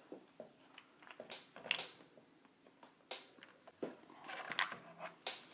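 Faint, scattered small clicks and taps of a screwdriver and fingers working a small screw out of a laptop's plastic screen bezel, about half a dozen in all.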